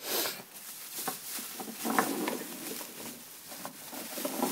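Plastic bags of frozen raw meat rustling and crinkling as they are handled, with small knocks between them.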